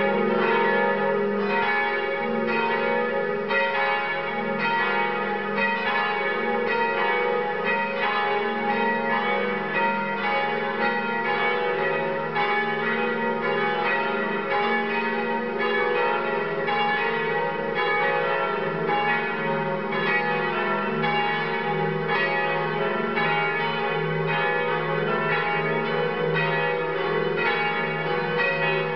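Cathedral bells pealing together: several bells of different pitches struck in quick succession, their strikes overlapping and ringing on without a break.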